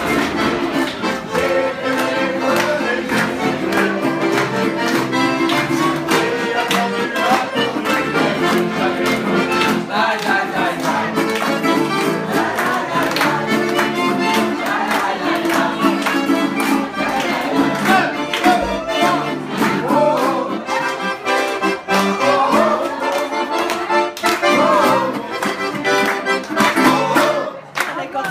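Live traditional French street-style music: an accordion plays a lively tune with a plucked string instrument, and guests clap along.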